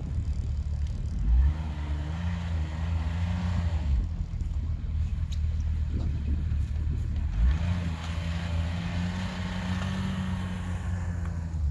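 Snowmobile engine running and revved up twice, the second time as it moves off towing a loaded cargo sled through deep snow.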